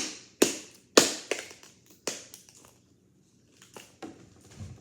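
Packaging being cut open: four sharp, crunching snips in the first two seconds, then fainter rustling and handling near the end.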